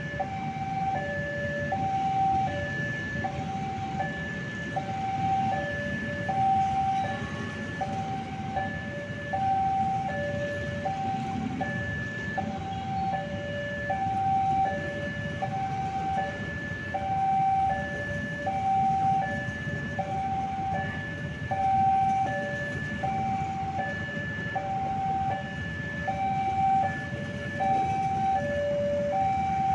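Railway level-crossing alarm sounding a repeating electronic two-tone chime, alternating high and low about once a second, over the steady low rumble of passenger carriages rolling past on the rails.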